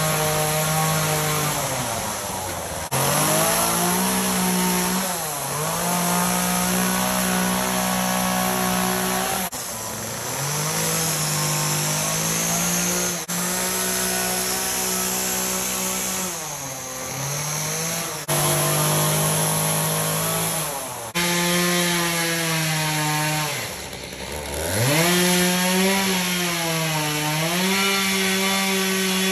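Two-stroke chainsaw running at high revs as it cuts into a wooden log, its pitch falling back toward idle several times between cuts and climbing again, lowest about three-quarters of the way in.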